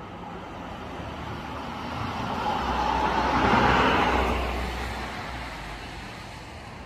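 A road vehicle passing by: its engine rumble and tyre noise swell to a peak about three and a half seconds in, then fade away.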